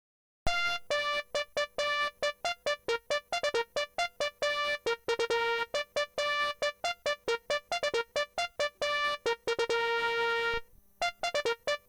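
Electronic ringtone of a Pantech Curitel PS-E100 mobile phone: a synthesized keyboard-like melody of quick, short notes with a couple of held notes. It starts about half a second in, breaks off briefly near the end, then starts again.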